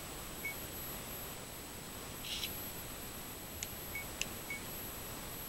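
Camcorder buttons clicking as they are pressed, with short high electronic beeps: one near the start and two close together near the end. There is a brief rustle of handling in the middle, over a faint steady high whine.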